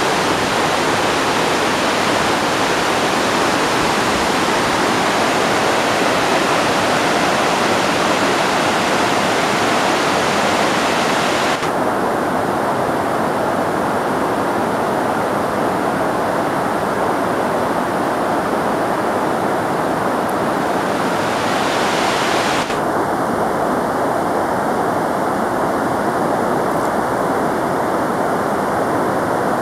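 Fast-flowing river running white over rocks and a weir: a steady rush of water. The high hiss drops away abruptly about twelve seconds in and again near twenty-three seconds.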